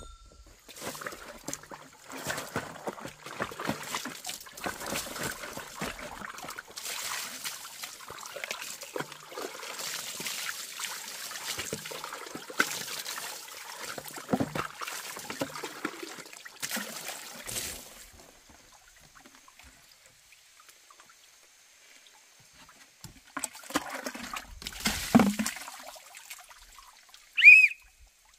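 Water splashing and trickling, as when something is washed or poured by hand, in two spells with a quiet gap between them. Near the end there is a short, high chirp.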